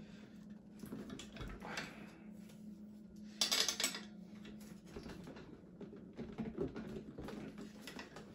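Faint metallic clinks of an open-end wrench on the front axle nut of a Ninebot Max electric scooter, with a louder cluster of clinks about three and a half seconds in. A faint steady hum runs underneath.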